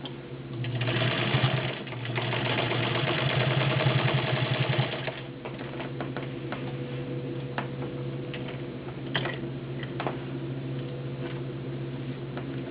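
A Class 15 clone straight-stitch sewing machine with a 0.75 amp motor stitching fast through thick folded denim: a short run, a brief pause, then about three more seconds of rapid stitching. After that it goes quieter, with a low hum and scattered clicks.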